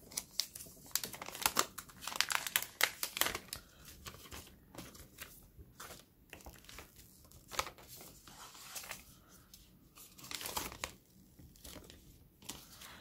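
Thin plastic protective film being peeled off a new smartphone and handled, crinkling and crackling irregularly. The crinkling is thickest in the first few seconds, sparser in the middle, with another flurry near the end.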